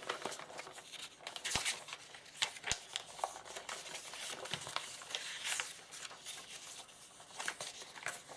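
Crinkling and rustling with scattered sharp light clicks, from handling small plastic kit parts and their packaging.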